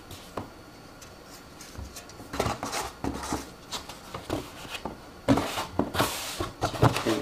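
Handling noise from a tower CPU cooler with aluminium fins and copper heat pipes being turned over in the hands: scattered light knocks and rubs, with a short rustle about six seconds in.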